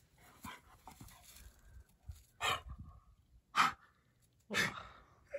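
An old dog breathing hard in short, sharp huffs, a handful of them about a second apart.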